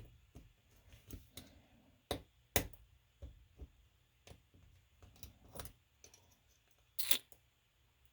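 Scattered small metal clicks and taps from handling a euro cylinder lock and tools while taking it apart, with a few sharper clicks, one about two and a half seconds in and another near the end.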